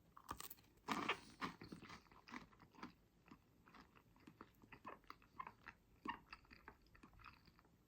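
Close-up chewing of a mouthful of toast and baked beans: irregular soft crunches and wet clicks of the mouth, loudest about a second in.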